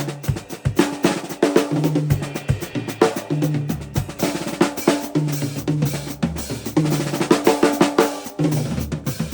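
Drum kit played freely in a fast, busy pattern: rapid snare and bass-drum hits with rolls and rim shots.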